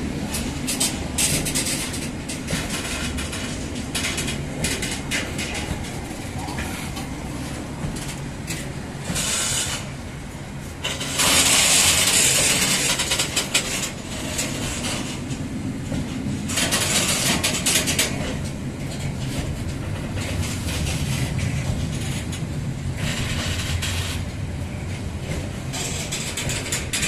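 Loaded double-deck car-carrier freight wagons rolling past close by: a steady rumble of wheels on the rails with many short clicks as the wheels cross rail joints. A louder rushing hiss rises about eleven seconds in and lasts about three seconds.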